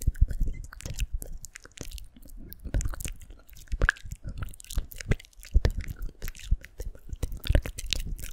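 ASMR mouth sounds made close to the microphone: a dense, irregular run of short clicks and smacks.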